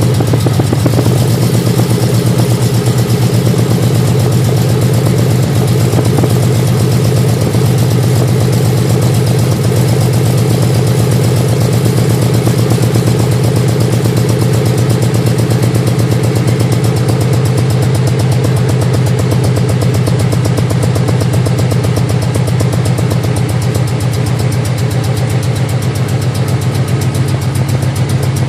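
Engine idling steadily with a fast, even pulsing, showing a noise that appeared after new exhaust headers were fitted.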